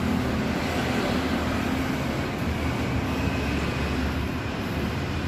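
A steady low engine rumble with a hiss over it.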